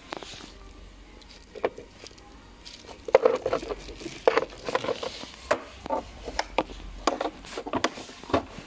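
Scattered clicks, knocks and light scraping of a Torx key and screws being worked on a steering wheel to free the airbag, with a few short metallic rings. Sparse at first, busier from about three seconds in.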